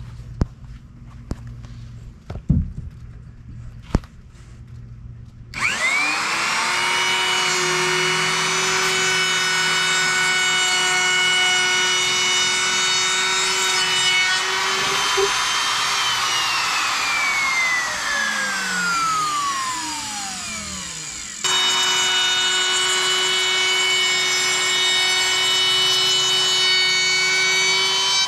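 Handheld electric router with a round-over bit cutting along a plywood edge. After a few handling clicks, the motor starts about six seconds in, spins up and runs with a steady whine. Past the middle it winds down with falling pitch, then is running at full speed again.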